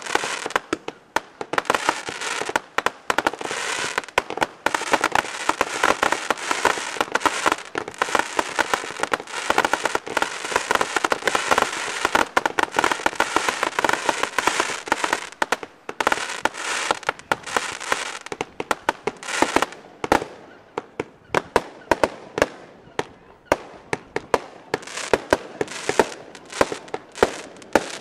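Fireworks display going off: a rapid barrage of cracks and bangs over a dense crackling hiss, which thins out about two-thirds of the way through into separate sharp bangs, several a second.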